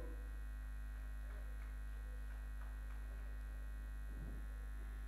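Steady low electrical mains hum in the event's sound feed, with a few faint noises from the hall.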